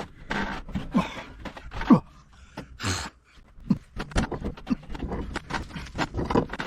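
A man grunting and straining with effort, short grunts falling in pitch about once a second, among rapid metallic clicks and knocks of a tool working a tight stuffing-box fitting loose.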